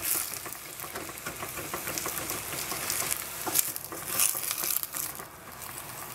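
Bok choy sizzling in a hot stainless steel saucepan while a wooden spatula stirs and turns it, with irregular knocks and scrapes of the spatula against the pan.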